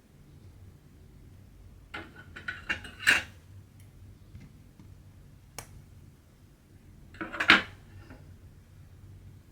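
Small hard objects clinking and clattering as they are handled: a cluster of sharp clicks about two seconds in, a single click mid-way, and another short clatter near the end.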